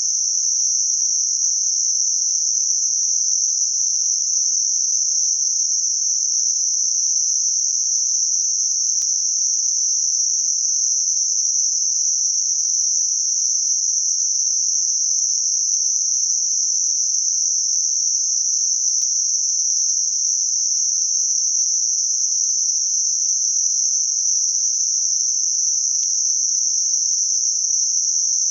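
Steady, unbroken hiss of computer-generated Gaussian narrow-band noise, confined to roughly 4–8 kHz with its peak near 6 kHz: a tinnitus-masking noise shaped to cover a high-pitched ringing.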